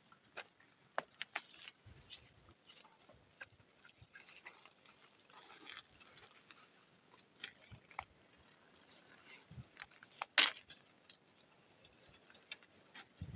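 Scattered faint crackles and clicks from dry thorn-tree branches and twigs being handled, with one sharp snap about ten seconds in.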